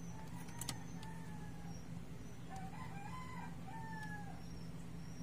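A rooster crowing twice, a short faint crow then a longer wavering one, over a steady low hum, with a small click about half a second in.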